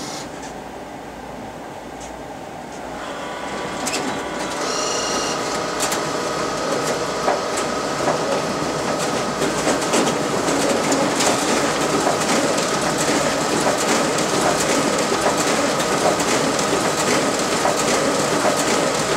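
RISO 9050 production printer running a duplex print job: paper feed and transport clatter with rapid clicks over a steady whine. The machine picks up about three seconds in and grows louder.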